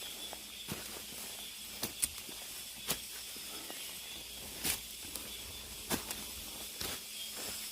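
Cicadas buzzing steadily as a high hiss, with hiking footsteps on a mountain path cutting through it every second or so.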